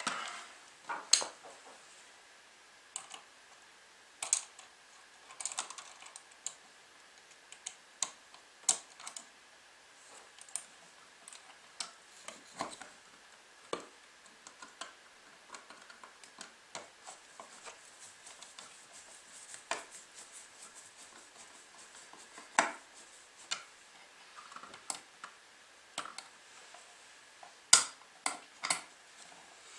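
Irregular small clicks and taps of hands and a tool handling plastic and metal parts, as wiring is pushed back into an electrical wall box and the night-light plate is fitted. The two loudest taps come about 23 and 28 seconds in.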